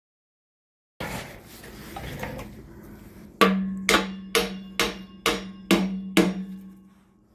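Eight hammer blows on metal, about one every 0.4 s, each leaving a ringing tone, during work on the front wheel of a 2002 Harley-Davidson Road King.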